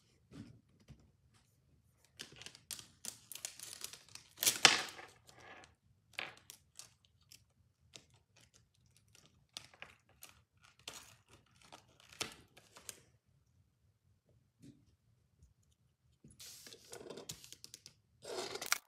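Packaging being torn open and handled: irregular tearing, crinkling and clicking, loudest in a sharp tear about four and a half seconds in, with a longer stretch of rustling near the end.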